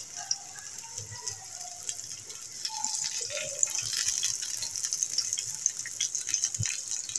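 Green bell pepper rings sizzling in shallow oil in a frying pan over a low flame: a steady hiss with small crackles, getting a little louder about three seconds in.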